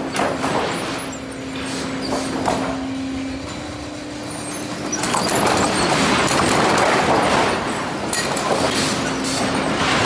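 Sawmill lumber-handling machinery running: chain conveyors carrying freshly sawn boards, with boards clattering and knocking over a steady mechanical hum. It gets louder about halfway through.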